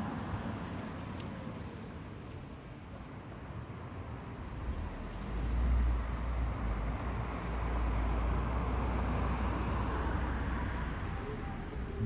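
Road traffic: a car passes close by, and a deep, steady rumble swells in about five seconds in and fades near the end.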